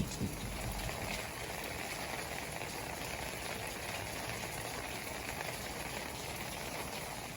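Rain falling steadily, an even patter of drops.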